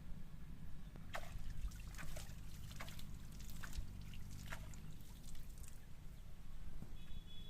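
Water dripping and trickling in scattered small splashes for a few seconds, over a steady low rumble.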